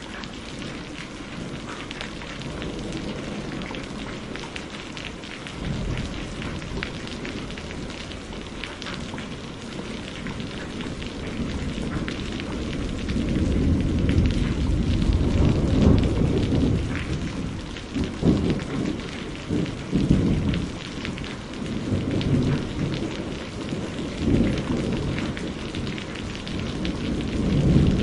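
Steady rain falling, with thunder rumbling underneath: the low rumble starts about six seconds in, swells through the second half in rolling surges, and peaks near the end.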